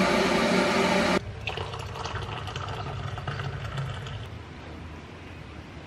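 Stainless electric kettle heating with a loud, steady rushing hum, which cuts off abruptly about a second in. Hot water from the kettle is then poured into a ceramic mug for about three seconds.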